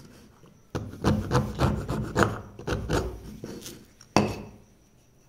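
Wooden-handled carving chisel scraping and cutting into a pine board in a quick run of rough strokes, followed just after four seconds in by one sharp knock.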